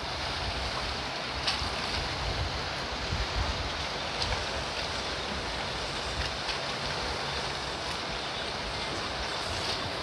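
Steady wind noise on the microphone mixed with sea water washing around a boat, with a few faint ticks.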